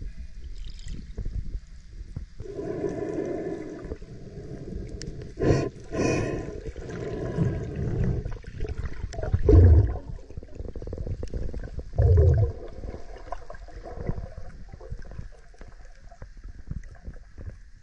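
Muffled underwater sound of water rushing and gurgling around the camera, with a few louder low thumps, the two strongest about halfway through and a couple of seconds later.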